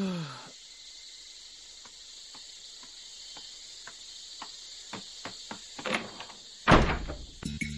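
A sleeper's falling groan that fades out in the first half second, then faint ticking about twice a second over a soft hiss. About 6.7 seconds in comes a loud sudden bang, a bedroom door being flung open.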